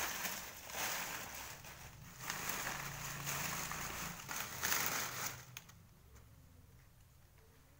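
Dry banana leaves rustling and crackling as hands push and pack them into a pile, in several bursts that stop about five and a half seconds in.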